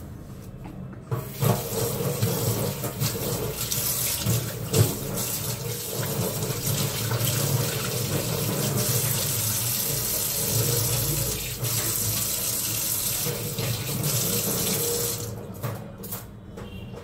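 Water running from a wall-mounted tap into a sink, turned on about a second in and shut off about two seconds before the end, with a couple of sharp knocks along the way.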